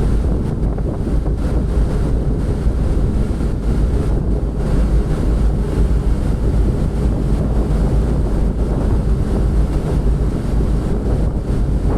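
Wind buffeting the microphone, a loud, steady low rumble that does not let up.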